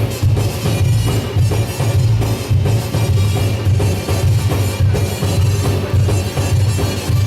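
Music with a heavy, steady drum beat.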